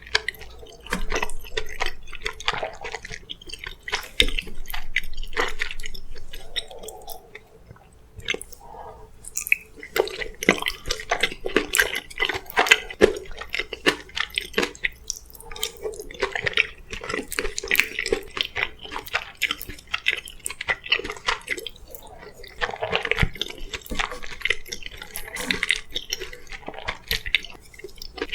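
Close-miked wet chewing and mouth sounds of a person eating: a dense run of small clicks and smacks, with a quieter spell about a third of the way through.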